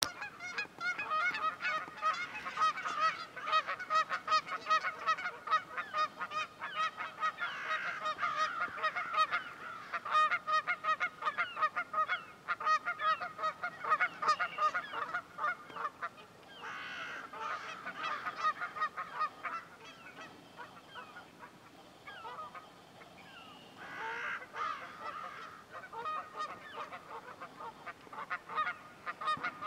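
A flock of Canada geese honking continuously, many calls overlapping, thinning out for a few seconds past the middle and then picking up again.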